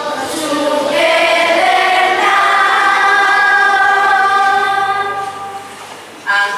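A group of children singing together in unison, holding long sustained notes that fade away near the end.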